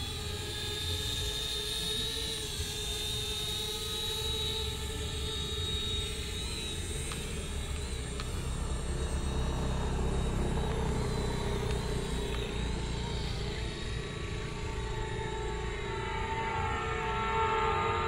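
Small drone's propellers whining steadily in flight, several pitches held together and wavering slightly, shifting and growing a little louder near the end.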